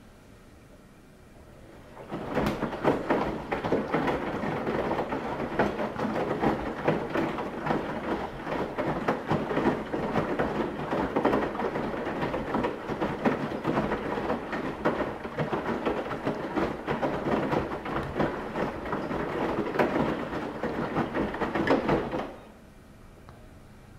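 Washing machine running: a continuous clattering, swishing noise full of irregular clicks. It starts abruptly about two seconds in, runs for about twenty seconds and cuts off shortly before the end.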